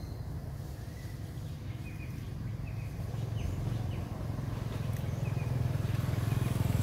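Low, steady engine rumble of a motor vehicle, growing louder toward the end, with short high chirps scattered through.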